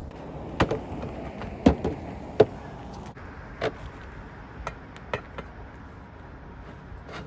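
Clicks and knocks of a camp gas-canister stove and metal cookware being handled and set down, a string of separate sharp knocks with the loudest in the first two and a half seconds.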